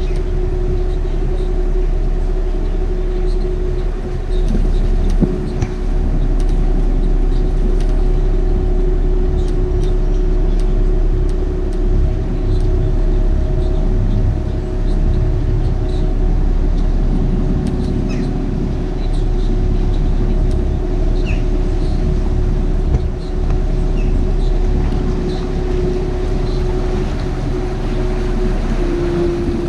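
Canal boat's motor running steadily, a constant hum under a low, fluctuating rumble of wind on the microphone.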